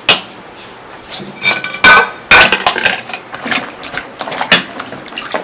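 Metal bowls, pots and utensils being handled: clanking and clinking, with a few sharp knocks, the loudest about two seconds in, some ringing briefly.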